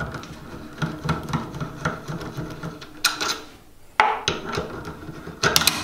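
Ratchet clicking in a quick run for about two seconds as connecting-rod bolts are loosened, followed by sharp metal knocks and clinks as the steel rod cap and bolts are taken off and handled.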